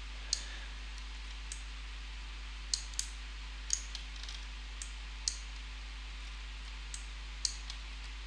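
Computer mouse clicking about ten times at irregular intervals while the 3D view is moved around, over a steady low electrical hum from the computer.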